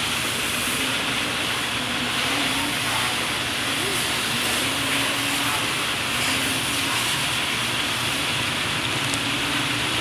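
A steady hiss at an even level, with a faint voice underneath.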